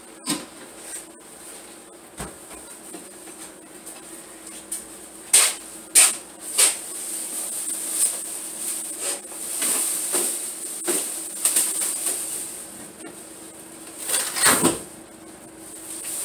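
Plastic grocery bags rustling and crinkling as they are carried, broken by several sharp knocks and thumps: a door being shut, and near the end a refrigerator door being opened.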